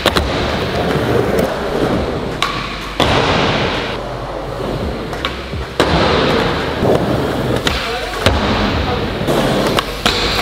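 Skateboard wheels rolling on the wooden surfaces of an indoor skatepark, broken by several sharp clacks and thuds of the board landing tricks. Near the end the board drops onto a metal rail.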